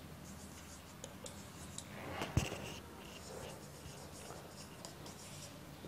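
Felt-tip marker writing on a whiteboard: faint scratching strokes, with one short knock about two and a half seconds in.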